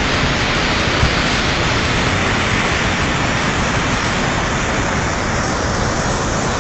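Muddy flash-flood water rushing and churning down a river channel: a loud, steady rush of water.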